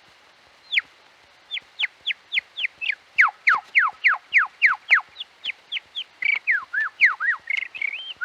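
A man imitating birdsong with his throat, starting and stopping each tone with his lips the way a bird uses its beak. It is a quick run of clear whistled notes, each sliding quickly downward, speeding up to about three or four a second, with a few curling notes near the end. Faint regular ticks run underneath.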